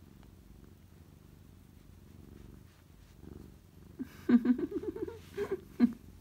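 A domestic cat purring steadily while its chin is rubbed. From about four seconds in, its fur brushes right against the microphone, adding loud rustles and bumps over the purr.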